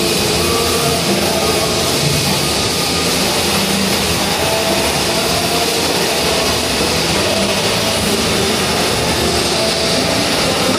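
Flux-cored arc welding on a steel flange: the arc burning without a break as a continuous, even hiss.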